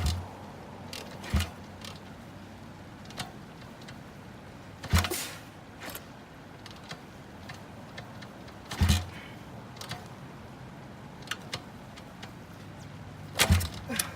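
SSR pit bike being kick-started, five kicks a few seconds apart, each a sharp knock with the engine turning over briefly and not catching: the bike won't start.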